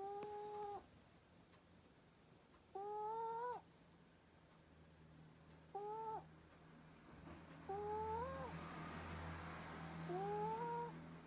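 Snoring in sleep: each breath gives a short, squeaky, rising whistle that sounds like a cat's mew. There are five of them, about every two to three seconds.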